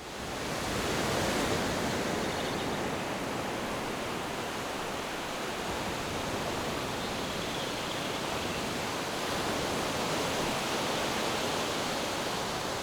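Steady, even rushing noise that fades in over the first second, then holds level with no distinct clicks or tones.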